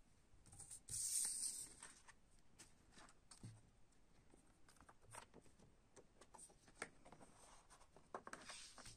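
A CD's paper booklet being picked up and handled: a brief rustle about a second in, then scattered soft clicks. Near the end comes a longer rustle as a large folded paper lyric insert is opened out.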